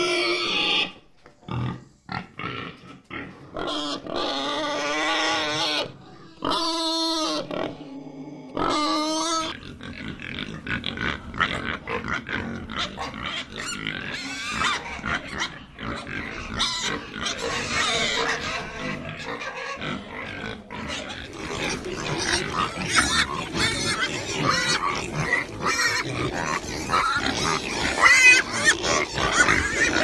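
Pigs calling: a few separate drawn-out pitched calls in the first ten seconds, then a dense jumble of many pigs' short calls that grows busier toward the end.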